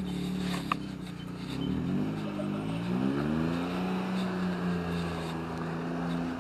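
A motor vehicle's engine running while driving. Its pitch shifts down and up about two to three seconds in, then holds steady. A single sharp click sounds under a second in.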